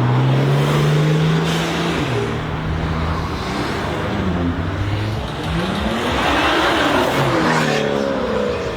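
Loud sports car engines accelerating and driving past. One engine note climbs in the first second, and around six to eight seconds in several engine notes rise and fall as cars go by.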